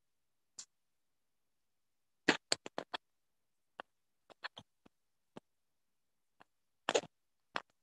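Short sharp clicks, some single and some in quick runs of four or five, separated by dead silence from a video call's noise suppression.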